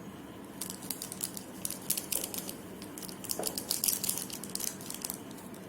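Silver glitter being shaken out of its container into slime base: a rapid, irregular run of light, crisp ticks and rattles that starts about half a second in and stops about five seconds in.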